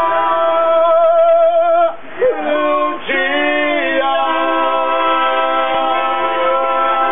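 Live singing of long held notes with a wavering vibrato over steady accordion chords. The sound breaks off briefly about two seconds in, then the held notes resume.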